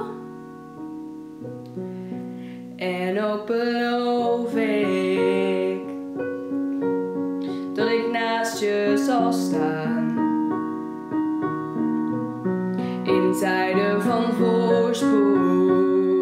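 Live band music: piano chords over electric bass, with a melody line rising and falling in three phrases.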